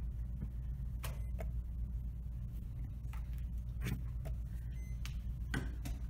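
Plastic chess pieces set down on a vinyl board and the buttons of a digital chess clock pressed in quick blitz play: a handful of sharp clicks and knocks over a steady low hum.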